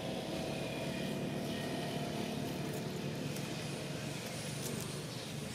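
Steady low engine-like hum of a motor running nearby, level throughout.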